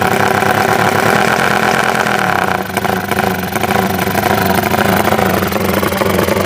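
Honda Tiger motorcycle's rebuilt single-cylinder engine, bored up to 270cc, running steadily and loud, with a brief dip in the sound about two and a half seconds in.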